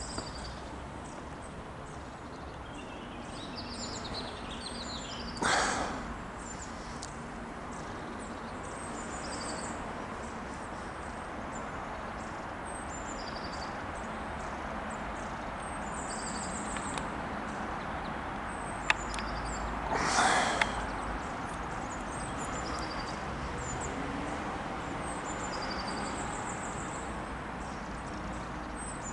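Small birds chirping repeatedly over a steady outdoor rush of background noise, with two brief loud breathy bursts of noise, one about five seconds in and one about twenty seconds in.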